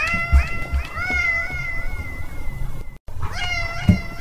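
Siamese kitten meowing over and over: a few short, high calls, then one longer drawn-out meow. The calls cut off suddenly about three seconds in and start again shortly after.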